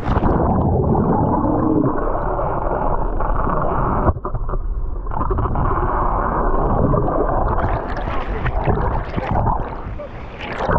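Muffled rushing and gurgling of water heard with the microphone underwater. All the high sound cuts off at once as it goes under, and comes back briefly near the end.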